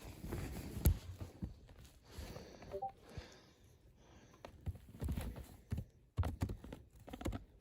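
Quiet, irregular clicks and taps of typing on a computer keyboard, with room tone between them.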